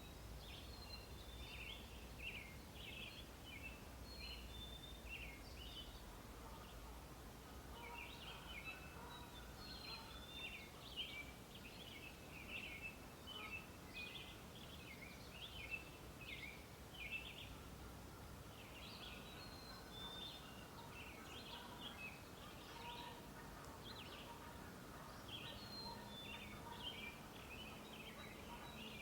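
Songbirds singing: a steady stream of short chirps and quick trills, with a few brief lulls. A faint low wind rumble lies under the first part.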